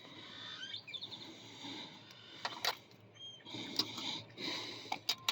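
Faint, scattered clicks and scrapes of a pick and tension wrench working the pins of a 40 mm Hyper Tough pin-tumbler padlock, not yet open, with a few short bird chirps.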